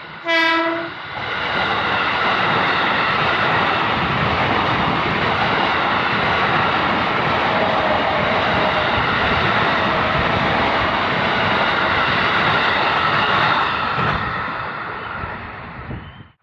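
KRL commuter electric train giving one short horn blast, then passing close by with a loud, steady rush for about thirteen seconds that fades near the end before cutting off abruptly.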